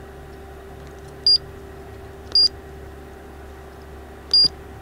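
Three short high-pitched beeps from the Cat PM622 cold planer's grade and slope control panel as its side buttons are pressed: about a second in, again a second later, and near the end. A steady low hum runs underneath.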